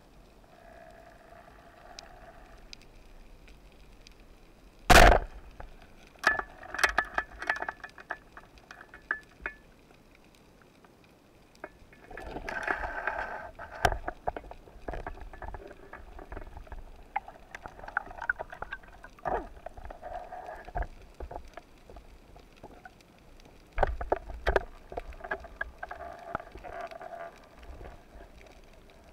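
Underwater, an Omer HF Camu 3D 110 rubber-band speargun fires with one sharp, loud crack about five seconds in. Clicking and rattling of the spear shaft and line follow as the speared white seabream struggles, with more bursts of clatter later.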